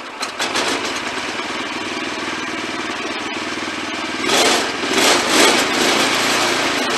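Engine of a Wood-Mizer LX25 portable sawmill running steadily, with a louder, rushing surge from about four seconds in that lasts a couple of seconds.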